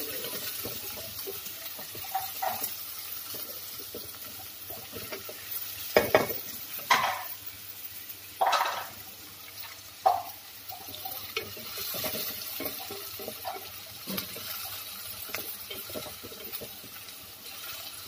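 Chopped onions sizzling as they fry in hot oil in a metal pan, being cooked until soft and coloured. A wooden spatula scrapes and knocks against the pan as they are stirred, with a few louder strokes between about six and ten seconds in.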